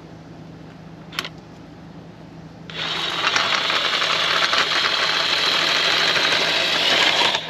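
Cordless DeWalt power driver spinning the screw of a scissor-type RV stabilizer jack, cranking the jack up. The driver starts about three seconds in, runs steadily with a fast rattling texture for about four and a half seconds, and stops just before the end.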